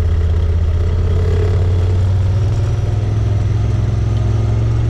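Motor vehicle engine running steadily with a loud, continuous low drone, heard from inside the vehicle.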